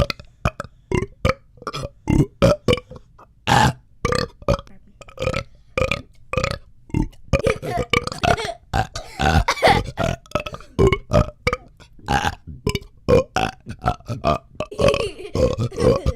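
A man burping over and over in a long run of short belches, about three a second.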